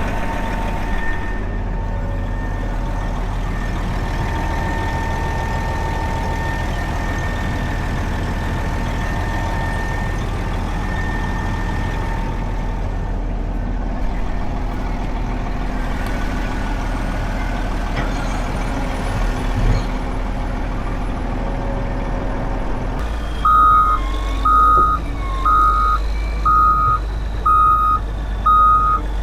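A heavy vehicle's engine running steadily with a high whine. Near the end it gives way abruptly to a backup alarm beeping about once a second over a low engine drone.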